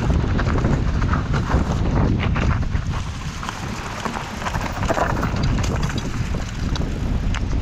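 Wind buffeting the microphone on a mountain bike descent, over a continuous rumble from the tyres and frame on rough dirt. Scattered short clicks and rattles run through it.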